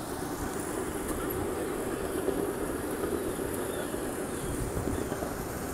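Steady rumble of a ride-on park train running along its track, heard from aboard.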